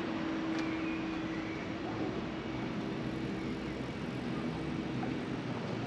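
Street traffic: a steady rush of passing vehicles with a low engine hum.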